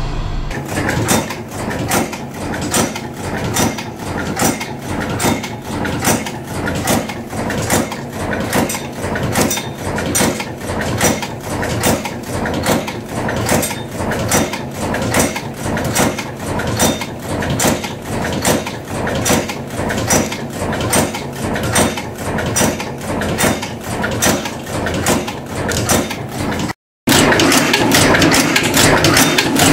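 Bolt-forming cold forging (cold heading) machine running, making socket head cap screws, with a steady rhythm of sharp forming strokes about two a second. About 27 seconds in, the sound drops out briefly, then carries on as a denser, more continuous clatter.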